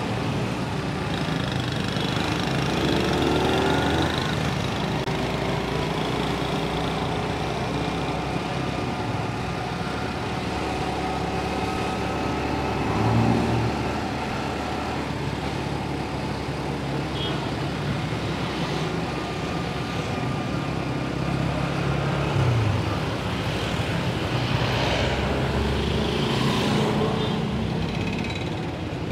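Honda motorcycle engine running steadily while riding through city traffic, its pitch shifting with the throttle and falling away about 22 seconds in, amid the noise of surrounding cars and motorbikes.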